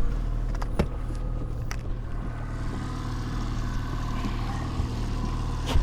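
Boat engine running steadily at trolling speed, a constant low hum, with a few sharp clicks over it.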